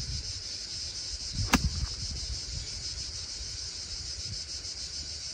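A single crisp strike of a golf club on the ball about one and a half seconds in, on an uphill approach shot, over a steady high chirring of insects and low wind rumble on the microphone.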